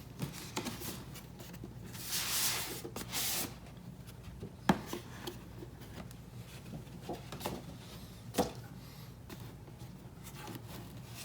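A phone's retail box being opened and handled: a sliding, rubbing sound about two seconds in as the packaging comes apart, then a few sharp taps and knocks as the box and its contents are moved.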